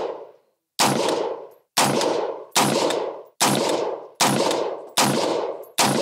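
AR-15 pistol with a 10.5-inch barrel firing 55-grain 5.56 rounds in steady semi-automatic fire: seven sharp shots, about one every 0.8 seconds, each trailing off in a ringing decay.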